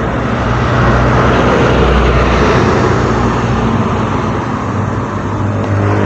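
A road vehicle driving past close by, loudest about two seconds in, then fading.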